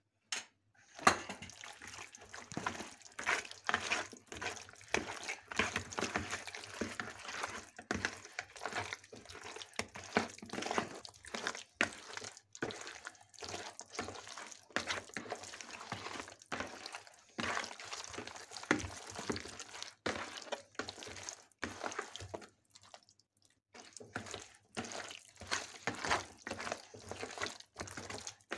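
Raw fish pieces being rubbed and mixed with spice paste by hand in a plastic bowl: irregular wet squishing and slapping, with a short pause a little over two-thirds of the way through.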